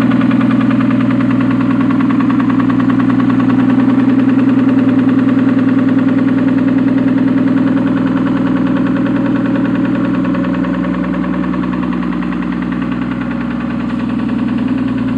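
Car engine running steadily with a fast, even rhythmic beat; the owner is asking whether it has a knock.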